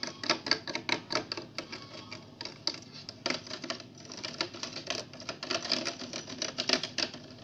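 A metal spoon stirring green colouring into slime glue in a clear plastic container, knocking and scraping against its sides in rapid, irregular clicks.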